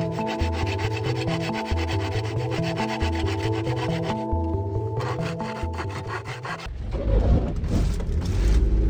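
A hand saw cutting across a pine board with quick, even strokes, pausing briefly about four seconds in, over background music with a stepping bass line. The sawing stops about seven seconds in, and a low rumble takes over.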